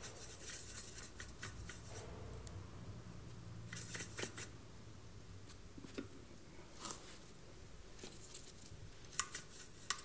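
Faint, scattered scratching and rustling from watercolour materials being handled (sketchbook, paper tissue, paint box), with a couple of sharp clicks near the end.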